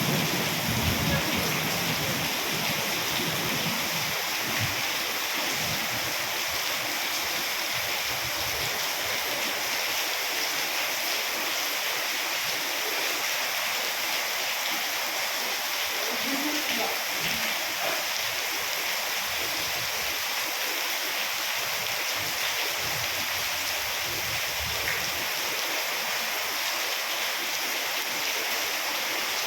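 Water of the Ouzoud waterfalls rushing and falling in a steady, even rush after heavy storm rain.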